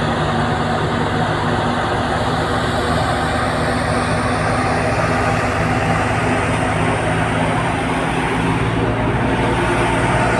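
Wheat thresher powered by a Fiat 640 tractor, running steadily while sheaves are fed in: a dense, even machine noise with the tractor's diesel engine humming low beneath it.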